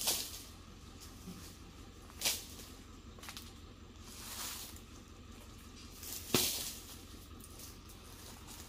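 Oil palm pruning: three sharp chopping knocks, at the start, about two seconds in and about six seconds in, as a dodos chisel strikes the frond bases. A soft rustle of cut palm fronds comes in between, around four and a half seconds.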